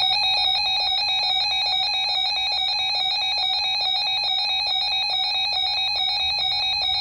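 Weather alert radio's electronic alarm beeping loudly, warbling rapidly back and forth between two pitches, set off by an incoming severe thunderstorm warning. It cuts off near the end.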